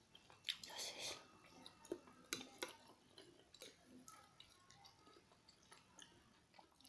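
Quiet, close-miked chewing of tteokbokki rice cakes: wet mouth smacks with scattered sharp clicks, loudest about a second in.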